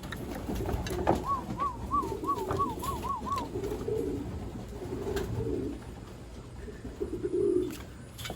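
Racing pigeons cooing, a run of low murmuring coos through the middle of the stretch. Early on, a separate wavering high note rises and falls about three times a second for roughly two seconds.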